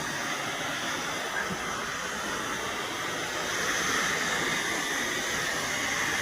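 Waterfall rushing as a steady, even hiss of falling water.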